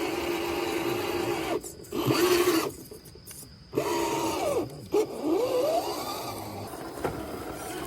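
Small electric motor and gearbox of an RC off-road crawler whining under load. The pitch holds steady, cuts out twice in the first half, then rises and falls as the throttle is worked.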